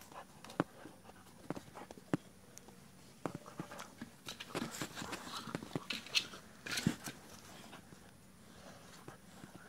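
A Labrador puppy moving about on a wooden ramp and the ground: scattered light taps and clicks of its paws, with a stretch of rustling and scuffing in the middle, loudest a little before seven seconds in.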